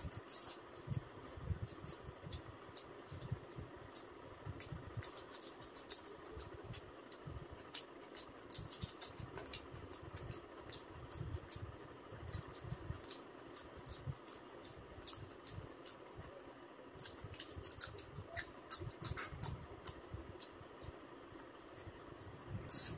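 Close-up eating sounds of a person chewing chicken curry: irregular wet clicks and smacks, several a second, with low thumps, over a steady faint background hum.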